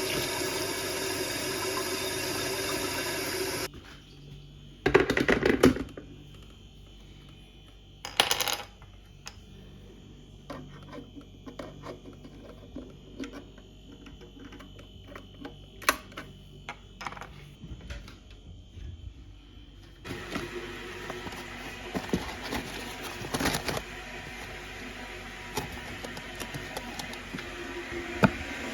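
Light metallic clinks and clatters, with a few louder knocks and scatters of small clicks. A steady hissing noise runs at the start and again through the last third.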